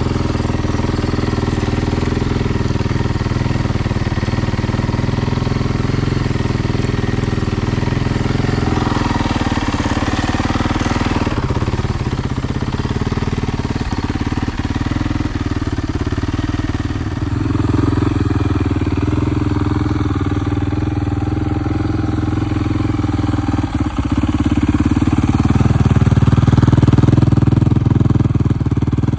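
Single-cylinder four-stroke engine of a freshly rebuilt Yamaha YZ450 dirt bike running at idle, with a couple of gentle rises in engine speed, the second and louder one near the end.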